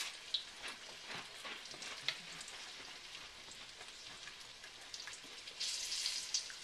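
Hot oil sizzling steadily with scattered crackles and pops as beer-battered green beans deep-fry, with a brief louder rush of hiss near the end.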